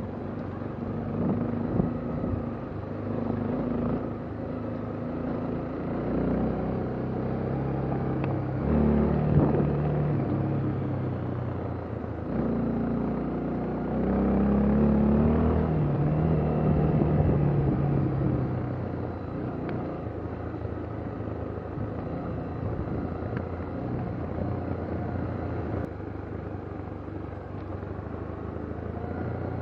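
Vehicle engine running, its revs rising and falling every few seconds, with a low rumble.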